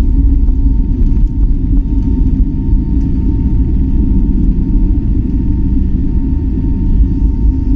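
Steady low rumble of an Airbus A320neo's engines and airflow heard inside the passenger cabin, with a faint steady high tone over it.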